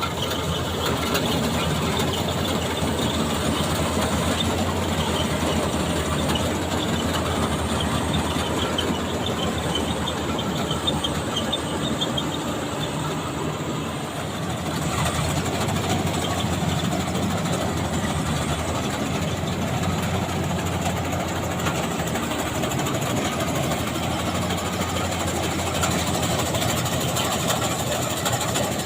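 Maxxi Bimo 102 combine harvester running steadily, engine and threshing machinery clattering together, with a brief dip in level about halfway through.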